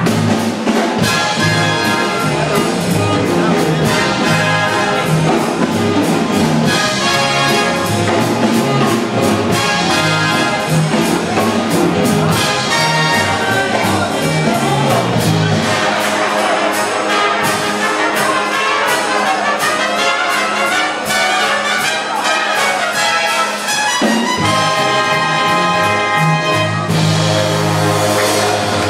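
Live big band playing up-tempo jazz for dancing, the trumpet and trombone section loud over a steady beat.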